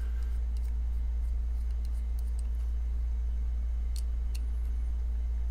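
Scattered small metallic clicks and ticks from a precision Torx screwdriver working a tight, Loctite-held T8 screw out of a folding knife's handle, with two sharper ticks about four seconds in. A steady low hum runs underneath.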